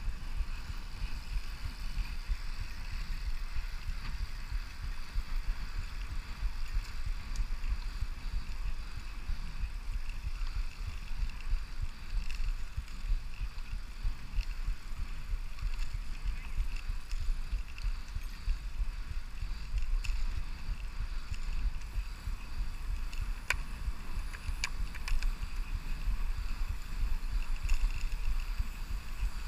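Riding noise of a Brompton folding bicycle on a paved road, with wind rumbling on the camera microphone and a steady hiss; a few sharp clicks come about three quarters of the way through.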